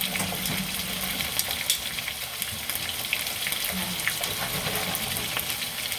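Seasoned french fries deep-frying in very hot oil: a steady sizzle with fine, constant crackling.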